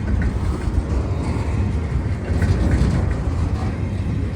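Car driving on a snow-covered road: a steady low road rumble with an even hiss.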